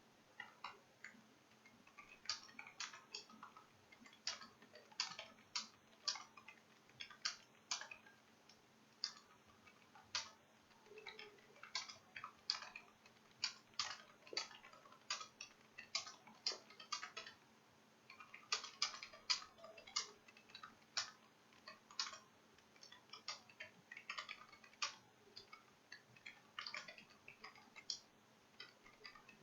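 Computer keyboard keys clicking in fast, irregular runs with brief pauses: continuous typing of running text at about 57 words a minute. A faint steady hum lies underneath.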